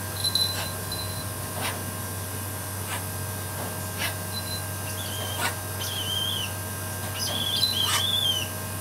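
A bird calling: short high wavering calls about five seconds in and again near the end, over a steady hum, with a few short clicks.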